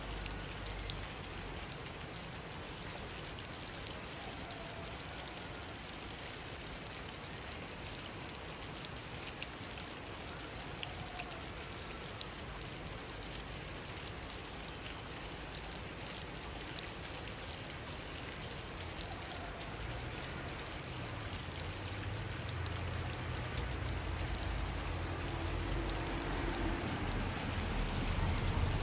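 A steady, even rushing hiss. A low rumble builds over the last several seconds, and a single sharp click comes just before the end.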